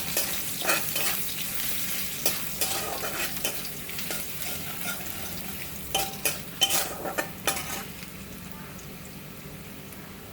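Ginger sizzling as it fries in hot oil in a pan, with a spoon stirring it and clinking against the pan several times, mostly in a quick cluster around the middle; the sizzle eases a little near the end.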